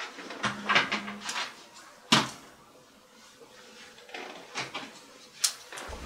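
Handling noises: clicks, knocks and rustling as things are picked up and moved about, with a short low tone about half a second in and sharp knocks about two seconds in and near the end.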